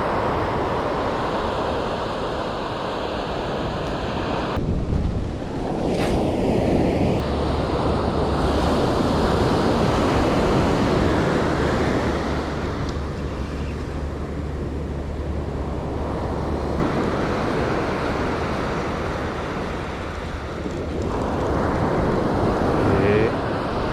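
Sea waves breaking and washing on the shore, with wind buffeting the microphone in low rumbles.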